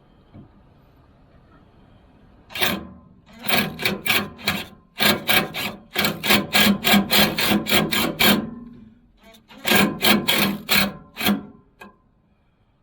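Bauer cordless drill run in a rapid series of short trigger bursts while drilling. It starts about two and a half seconds in and has a brief pause about a second before the last run of bursts.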